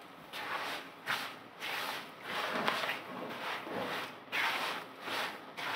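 Wooden spatula stirring and scraping a dry, crumbly panjeeri mixture around a non-stick pan, in a quick run of rasping strokes about two to three a second.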